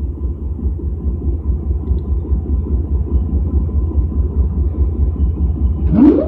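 Pakistan Railways AGE-30 diesel-electric locomotive idling with a steady, low, pulsing rumble. Near the end its air compressor cuts in with a short rising whine and then runs on with a steady hum.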